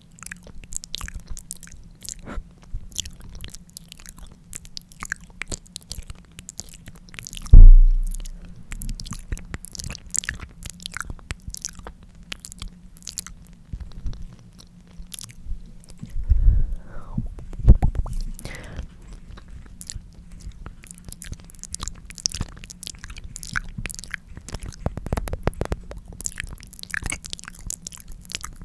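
Close-miked ASMR lip licking: a dense, continuous run of small wet clicks and smacks from the lips and tongue. About a third of the way in there is one loud low thump.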